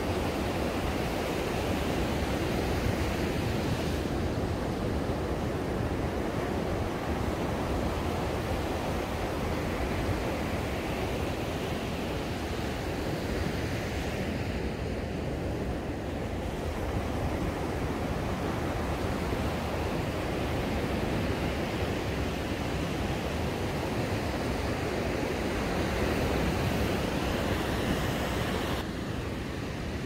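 Sea surf breaking and washing up a sandy beach: a steady rushing wash of waves.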